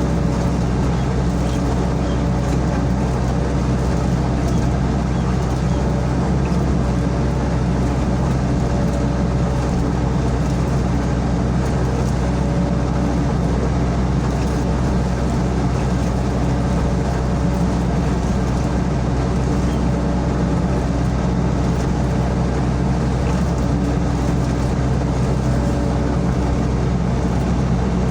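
Sany SY55C mini excavator's diesel engine running steadily at a constant speed while it works.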